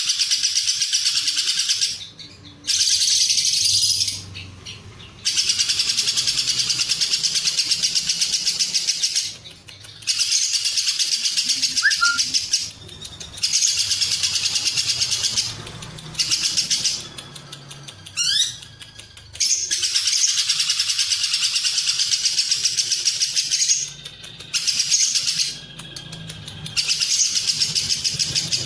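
Lovebird ngekek: long runs of fast, high-pitched chattering trills, each lasting several seconds, with short breaks between them.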